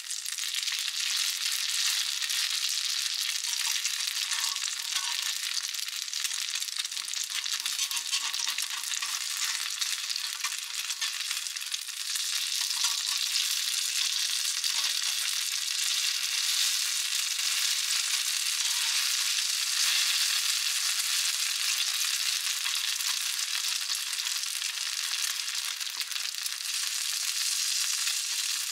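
Corn fritters frying in shallow oil in a cast-iron skillet: a steady, hissing sizzle with faint crackles.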